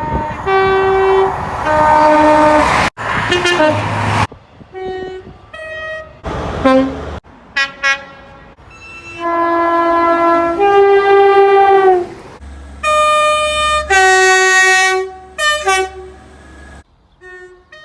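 A run of short clips of railway train horns spliced together with abrupt cuts between them. Most are two-tone blasts, a held note followed by a second note at a different pitch, each lasting about a second, with train running noise and a low rumble under some clips.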